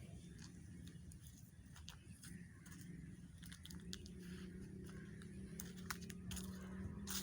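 Faint crunching and crackling, like footsteps on dry leaf litter and twigs, with irregular sharp snaps that grow more frequent in the second half, over a low steady hum that strengthens about four seconds in.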